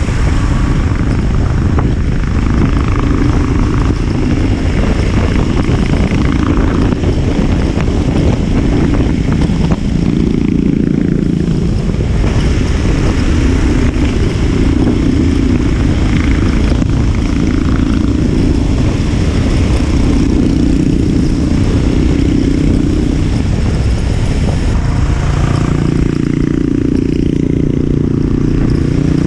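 Royal Enfield motorcycle engine and exhaust running on the move, its pitch shifting as the engine speed changes, with steady wind noise underneath.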